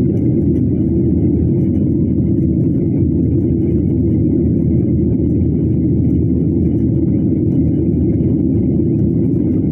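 Steady low rumble of passenger-plane cabin noise, engine and airflow noise at an even level throughout.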